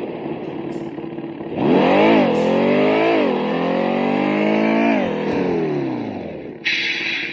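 Remote-control car engine sound module playing a synthesized car engine sound: it idles, blips up sharply twice, climbs steadily in pitch, then winds back down. A short hiss follows near the end.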